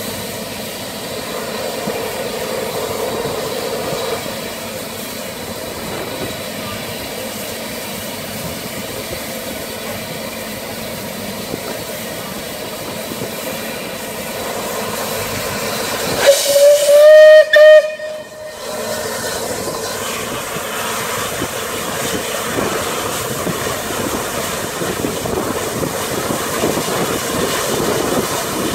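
Bulleid Battle of Britain class 4-6-2 steam locomotive 34052 standing with a steady hiss of escaping steam. About two-thirds of the way through its whistle blows loudly for about two seconds, with a brief break in the middle.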